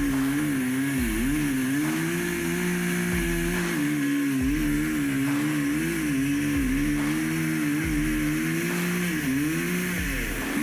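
An engine running steadily, its pitch wavering up and down as the revs rise and fall.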